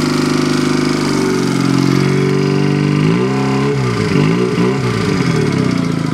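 A 2009 AJS NAC 12 motorcycle engine running at raised revs through its dual exhaust. The pitch climbs a little about a second in, and the throttle is blipped up and down a few times around the middle before it holds steady. It stays at only about 4,000 to 5,000 rpm.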